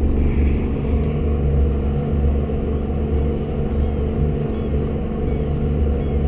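Outboard motor of a small boat running steadily underway, a deep even drone.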